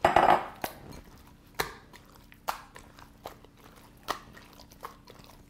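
A hand squeezing and kneading homemade glue-and-liquid-starch slime in a glass bowl: a louder wet squelch at the start, then short sticky smacks about once a second as the slime is pressed to work out the liquid.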